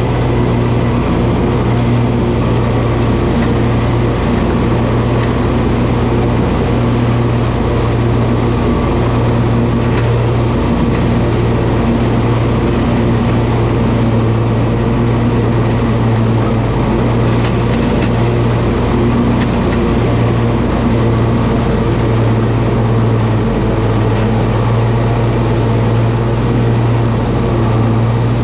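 Toro zero-turn riding mower running steadily while mowing grass, its engine holding a constant, even hum.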